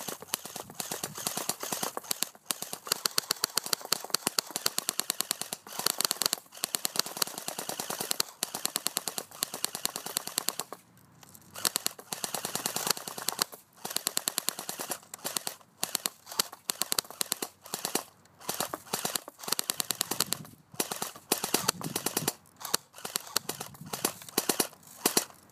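Electric airsoft AK Krinkov (AKS-74U style) rifle firing full auto: rapid clicking bursts of a few seconds with short pauses between, growing shorter and more broken toward the end as the battery runs flat.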